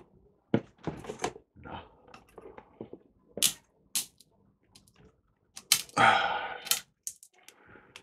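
Clicks and knocks of a corroded old capacitor being worked loose and twisted out of its mounting, with a louder scraping noise about six seconds in that lasts most of a second.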